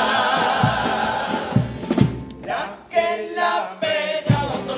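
A men's carnival comparsa chorus singing a song in several-part harmony, backed by a regular drum beat. The voices drop away briefly a little past halfway, then come back in.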